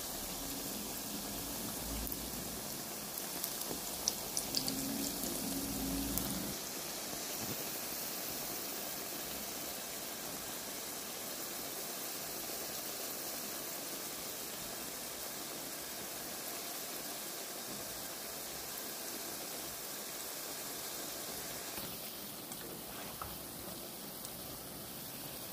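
Potato patties sizzling as they shallow-fry in hot oil, a steady crackling hiss with a few sharp pops of spattering oil about four seconds in.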